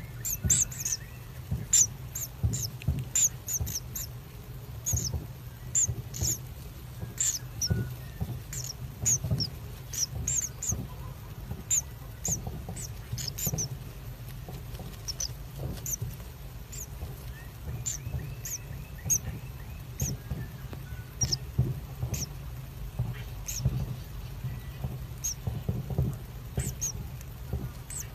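Common kingfisher nestlings squeaking in the nest burrow: short, thin, high squeaks at irregular intervals, sometimes several a second, over a steady low hum.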